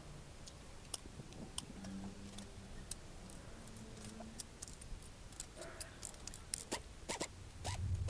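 Faint, irregular metallic clicks of a socket wrench and tools working bolts in an old Toyota engine's cylinder head, coming more often in the last few seconds.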